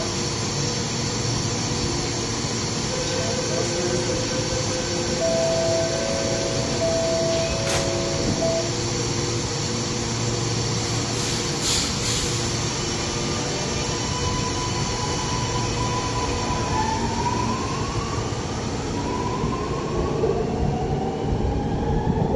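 Alstom Metropolis metro train at the platform with a steady running hum. Its door-closing warning beeps sound for a few seconds about a quarter of the way in, and in the second half the electric traction motors give rising whines as the train pulls away.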